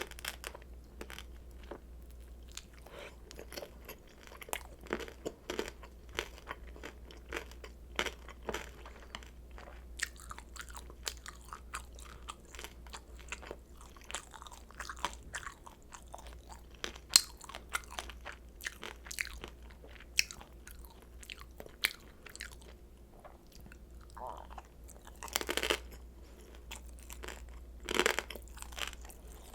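Close-miked eating of pan-fried kimchi dumplings: a run of bites and chewing made up of many small sharp crackles, with two louder bursts near the end. A steady low hum lies underneath.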